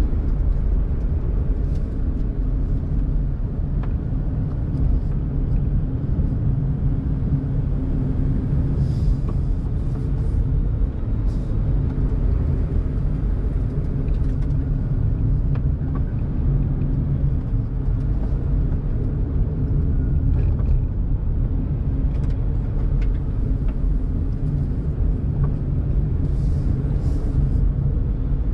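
Daihatsu Mira Tocot's small three-cylinder engine and tyres giving a steady low rumble as the car drives along.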